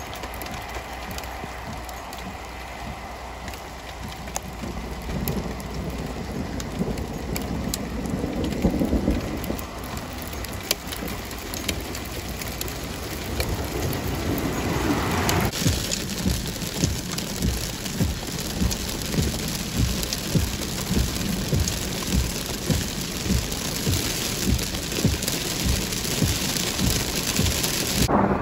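Thunderstorm: steady rain with low rumbles of thunder, growing louder about halfway through.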